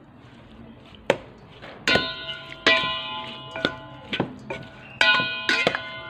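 Metal spoon knocking against a stainless steel mixing bowl while tossing a meat salad, about seven knocks starting about a second in, each leaving the bowl ringing briefly.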